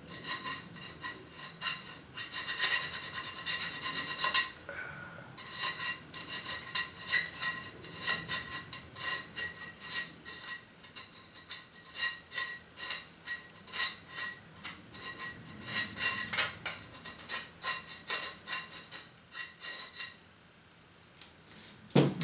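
Hand file rasping on the edge of a thin metal printer plate in rapid short strokes, the plate ringing with a high metallic tone under each stroke. The plate is being filed down to ease a tight fit. There is a short pause about four seconds in, and the filing stops about two seconds before the end.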